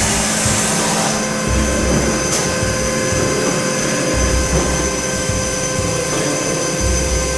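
Industrial band saw machine running, a steady mechanical hum and whine with a low throb that recurs about every two and a half seconds.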